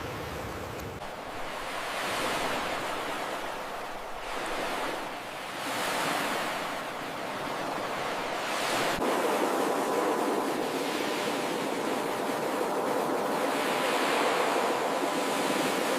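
Ocean surf: waves breaking and washing up a beach in a rushing wash that swells and eases every few seconds.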